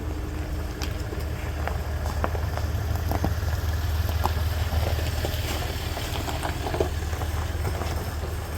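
A vehicle engine idling with a steady low rumble, and a few small clicks and knocks.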